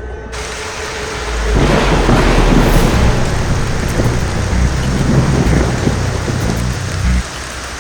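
Heavy rain falling with a rolling rumble of thunder that swells loudly about one and a half seconds in and keeps rumbling.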